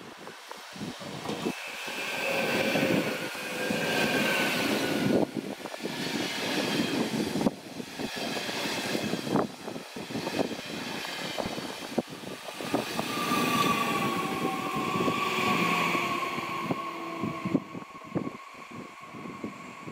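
Red DB double-deck regional train rolling past along the platform track, its wheels clattering over rail joints and points. A high whine comes and goes, and in the second half a tone slides slowly down as the train moves off.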